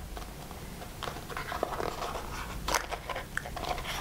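Fingers picking and prying at a small package that won't open. It makes an irregular run of small clicks, scratches and crinkles, the loudest a little under three seconds in.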